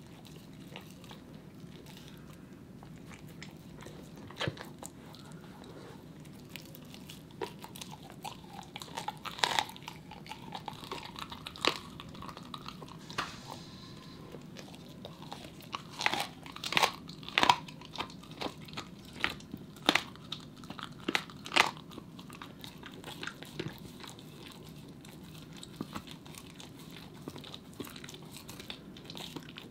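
Corgi gnawing on a raw bone: wet chewing broken by sharp crunches and cracks of teeth on bone, with a close run of the loudest cracks in the middle.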